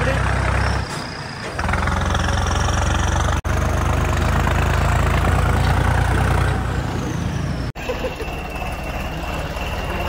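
John Deere tractor's diesel engine running as it drives, heard from the driver's seat, with abrupt breaks about one, three and a half, and seven and a half seconds in.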